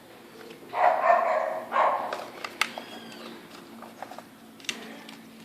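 A dog barks twice in quick succession, about a second in, followed by a few light clicks.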